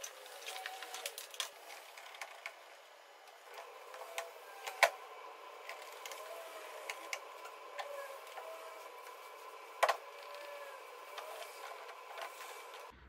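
Scattered clicks and knocks of a plastic rear bumper cover being fitted and clipped onto a car body, with two sharp snaps about five seconds apart.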